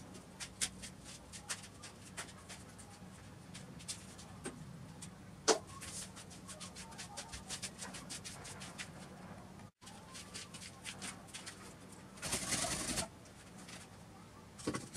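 Work-site ambience: scattered light clicks and taps over a faint steady low hum, with a short burst of rustling noise about twelve seconds in. A bird calls in the background.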